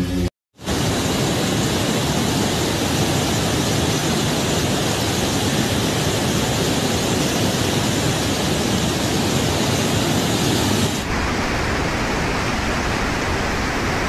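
Muddy floodwater rushing in a swollen river, a loud steady rush. About eleven seconds in it changes abruptly to a slightly duller rush of floodwater surging past a building.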